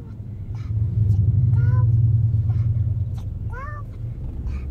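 Low road rumble of traffic, swelling for about two seconds from a second in as a car passes close alongside. A few short, high-pitched arching cries come through about once every two seconds.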